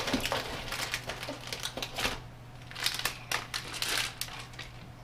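Plastic candy wrapper rustling and crinkling in irregular bursts as the packet is taken out of a cardboard snack box and handled.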